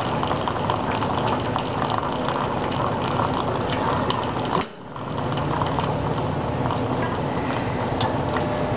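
Fetco commercial coffee brewer dispensing hot water from its spray head during a brew cycle, a steady hiss and spatter of water that cuts out for a moment about halfway through and then resumes.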